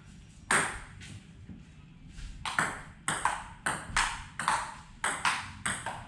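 Table tennis rally: the celluloid-type ball clicking sharply off the rubber-faced paddles and the tabletop. A single hit about half a second in, then from about two and a half seconds a steady back-and-forth of two to three hits a second.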